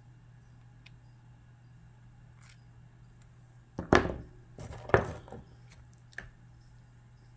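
Handling noise: two short knocks about a second apart, each trailing into a brief scrape, then a few lighter clicks, over a faint steady hum.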